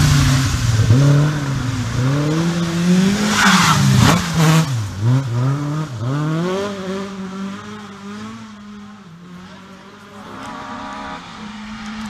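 A Ford Escort rally car's engine revving hard and dropping off several times as the car is driven through a hairpin, with a burst of tyre noise about four seconds in. The engine note then fades as the car pulls away, and near the end a steadier engine note comes in.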